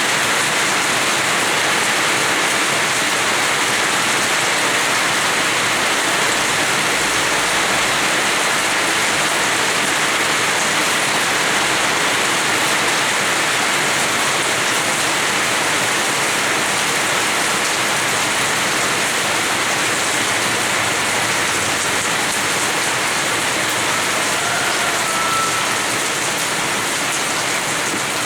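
Steady rain falling on the ground and surfaces of a house yard, an even unbroken hiss.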